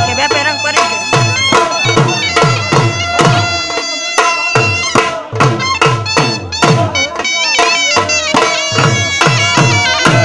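Live folk dance music from a dhol and a double-reed pipe of the shehnai or surnai type. The pipe plays a sustained, bending melody over a steady, driving dhol beat.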